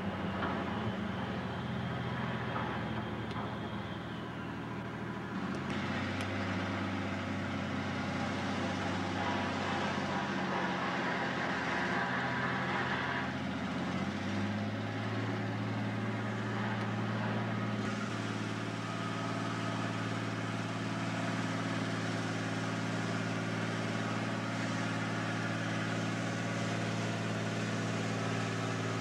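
Cummins 220 diesel engine of a four-axle truck-mounted Lima Model 65-T shovel's carrier, running as the heavy machine drives slowly along a dirt road. Its note changes about 6 seconds in, steps up about 14 seconds in, and then holds steady.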